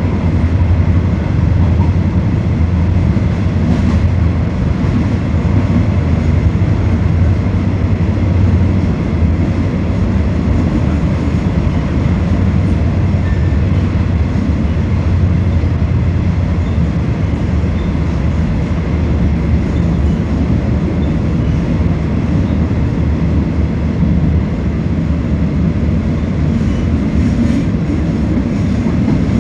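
Passenger train running at speed, heard from inside the carriage: a steady low rumble of wheels on the rails under a constant hiss.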